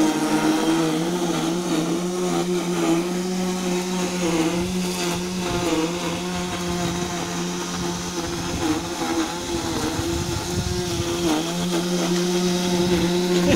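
Radio-controlled Ford Raptor truck rigged as a lawnmower, its motor humming steadily as it drives and mows across the grass. A lower part of the hum drops away for a few seconds midway, then comes back.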